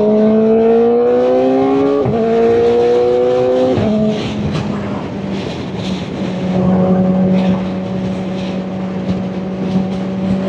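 Kawasaki Ninja ZX-4RR's 399 cc inline-four engine pulling up through the gears under acceleration. Its pitch rises, drops sharply at an upshift about two seconds in, rises again and drops at a second shift about two seconds later, then settles to a steady cruise over wind noise.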